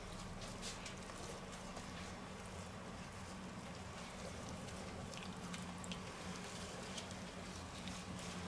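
Faint soft, wet crinkling and small ticks of blanched cabbage leaves being folded and pressed by gloved hands, over a steady low hum.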